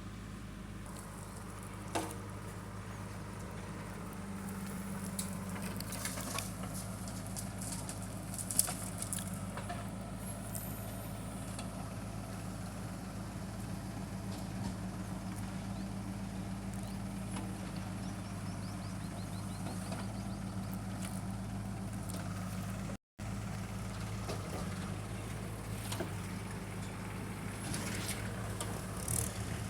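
Heavy diesel engine running at a steady speed, with a few sharp knocks, one about two seconds in and a louder one about eight seconds in. The sound drops out for a moment about three-quarters of the way through.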